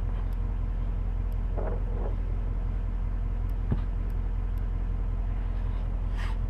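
Steady low hum of an idling vehicle engine, with one faint click a little over halfway through.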